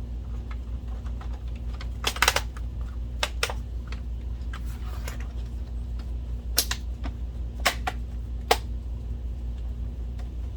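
Irregular plastic clicks and knocks from the projector's plastic back panel and casing being handled and fitted, with a quick cluster about two seconds in and several single sharper clicks later, over a steady low hum.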